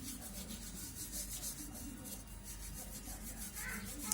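Rhythmic rubbing or scrubbing strokes, a few a second, with faint voices underneath.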